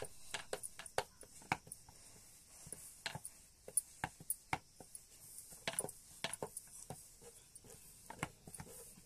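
A series of irregular sharp clicks and light knocks, roughly two or three a second, of the kind that kitchen work with utensils and dough makes.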